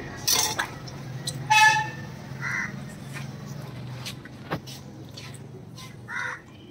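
A short vehicle horn toot about one and a half seconds in, over a steady low hum, with a few scattered clicks and faint background voices.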